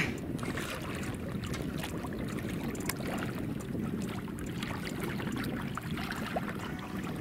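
Water lapping and splashing against the side of a boat, with small scattered splashes over a steady low rush of wind and water.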